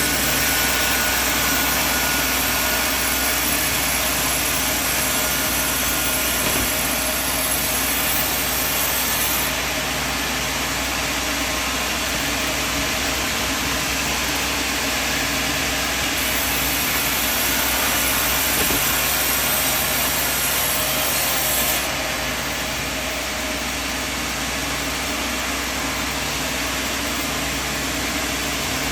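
A sawmill running steadily, a continuous machine drone. Its high hiss drops away about ten seconds in, comes back about sixteen seconds in, and drops again about twenty-two seconds in.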